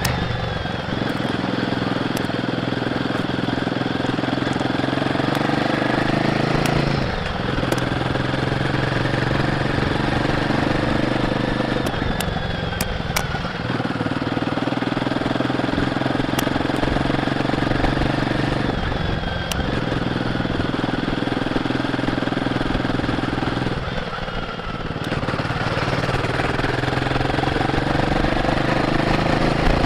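Royal Enfield Guerrilla 450's single-cylinder engine on the stock exhaust pulling the bike along under way. The engine note dips and breaks briefly about four times, then picks up again and climbs in pitch.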